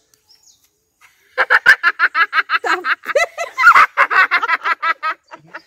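A woman and a girl laughing hard together: a fast, high-pitched run of ha-ha's that starts about a second and a half in, after a brief quiet, and carries on almost to the end.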